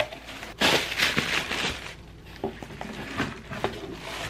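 Plastic air-pillow packing crinkling and cardboard rustling as a box is pulled out of a cardboard shipping carton, with a few light knocks from the handling.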